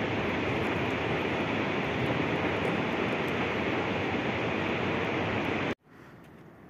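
Steady rushing of a fast-flowing mountain river. It stops abruptly near the end, leaving a much quieter outdoor background.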